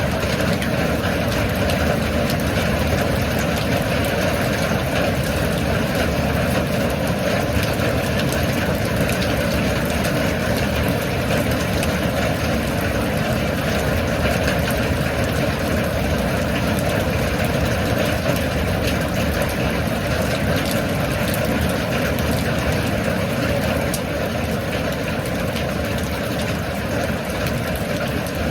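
Steady rain falling: a dense, even hiss with fine pattering of drops, unchanging throughout.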